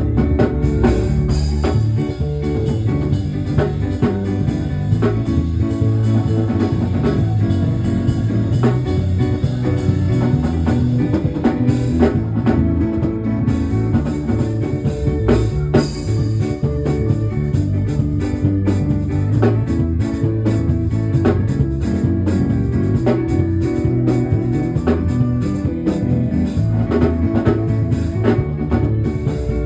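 Instrumental band music with electric guitar, bass and drum kit playing a steady groove.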